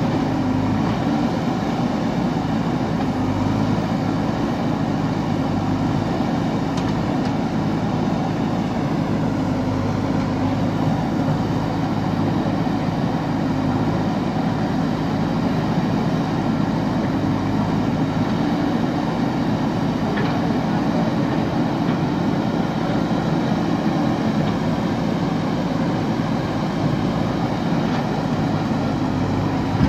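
JCB backhoe loader's diesel engine running steadily while the machine digs, at a constant level with no breaks.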